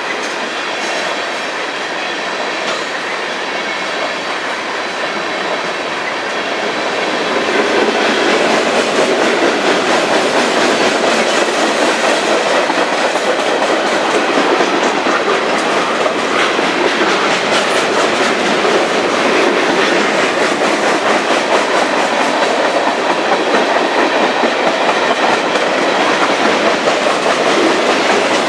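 Freight train cars rolling past, their wheels clattering over the rail joints; the sound grows louder about seven seconds in.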